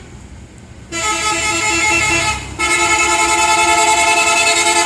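Tour bus's Basuri telolet horn, a multi-tone musical horn. Starting about a second in, it plays a quick run of short notes, breaks off briefly, then holds a loud chord with a fast warble.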